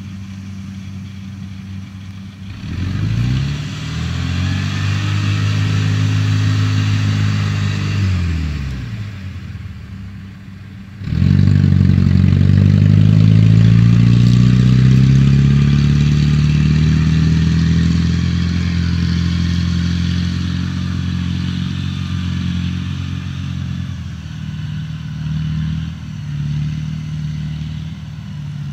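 Diesel engine of a rice combine harvester, heavily loaded with sacks of rice, idling, then revving up about two seconds in and easing off near eight seconds. It revs hard again about eleven seconds in as the machine drives off, then settles to a steady run.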